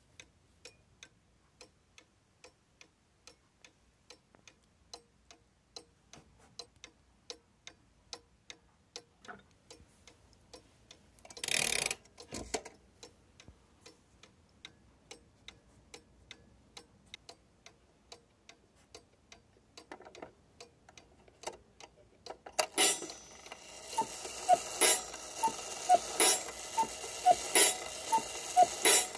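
Steady ticking of a 1970s Majak mechanical cuckoo clock's pendulum escapement, about two to three even ticks a second. There is a brief rustling bump about twelve seconds in. In the last several seconds the ticks are much louder and sharper over a raised background hiss.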